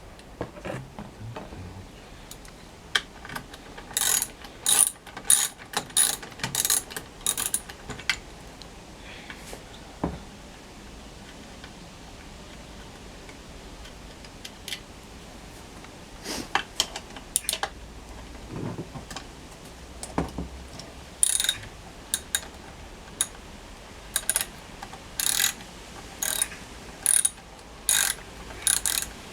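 Hand ratchet wrench clicking in short runs of sharp clicks as fasteners are worked on an outboard motor, in two spells: one about four seconds in and another in the last third.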